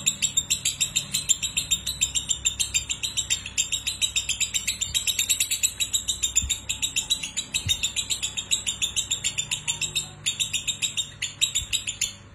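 Lovebird ngekek: a long, fast chattering trill of sharp high chirps, about six a second, with brief breaks near the start and about ten seconds in. It stops shortly before the end.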